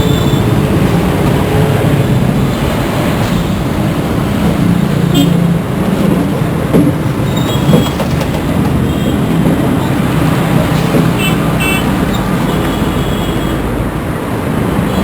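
Busy road traffic: a continuous mix of engines and tyre noise, with a few short horn beeps about a third of the way in and again past the middle.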